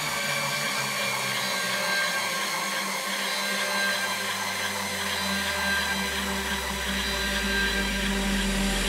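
Electronic dance music in a quiet breakdown with no drums: held synth chords under a hiss of noise, and a deep bass tone that slides slowly downward over the second half.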